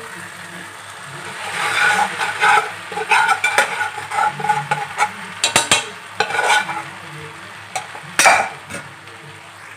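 Boiled chickpeas tipped from a bowl into spinach-tomato masala frying in an iron pan, over a steady sizzle, followed by a run of clinks and knocks from the utensils. A sharp knock comes near the end.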